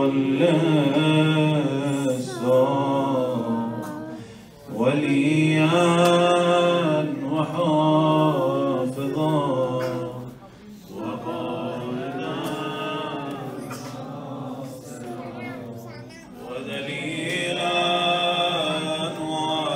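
A man's voice chanting unaccompanied in long, drawn-out phrases, each several seconds long, with short breaks between them.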